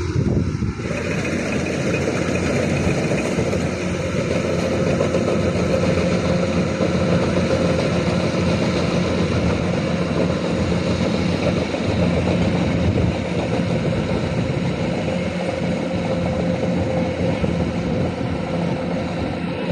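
Kubota DC-120X rice combine harvester running steadily: a continuous engine drone with a constant low hum and a higher steady tone over dense mechanical noise.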